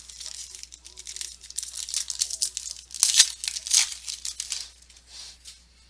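A foil trading-card pack being torn open and its wrapper crinkled: a run of rustling tears, loudest about three seconds in, that dies away near the end.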